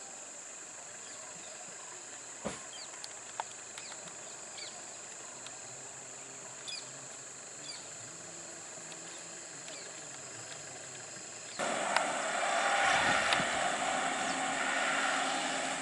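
Roadside forest ambience: a steady high insect buzz with scattered short bird chirps and a couple of sharp clicks. About eleven seconds in it gives way abruptly to a louder, steady rushing noise of a vehicle running close by.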